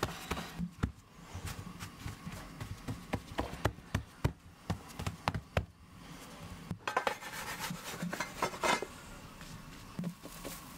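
Hands patting and pressing a floured ball of Ossetian pie dough flat on a wooden board: a quick, uneven run of soft slaps. After about seven seconds the pats give way to rustling and brushing as the flattened pie is handled.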